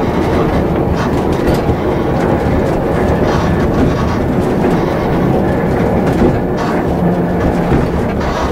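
Heritage tram running along single track, heard from inside the car: a steady rumble of wheels on the rails with occasional clicks.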